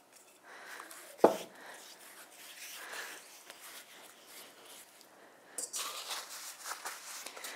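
Hands spreading olive oil over rolled pizza dough: a soft, quiet smearing and rubbing of skin on oily dough. A single knock about a second in as the glass oil bottle is set down on the wooden worktop, and a louder rustle near the end.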